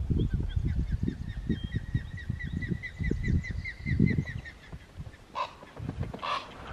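Birds calling in flight: a long run of rapid, high chirps lasting about four seconds, then two or three harsher squawks near the end, over low rumbling thumps.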